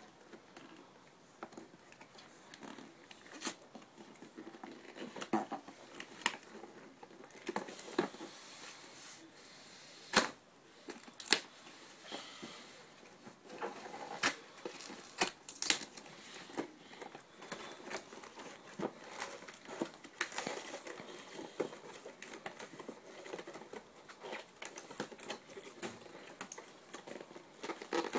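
Cardboard toy box and its packaging being handled and opened by hand: irregular clicks, taps, scrapes and tearing of cardboard, with two sharp knocks about ten and eleven seconds in.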